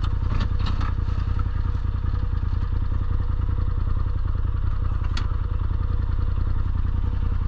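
Turbo Polaris RZR side-by-side being driven off-road, its engine running steadily with a low rumble and a few sharp rattles from the vehicle.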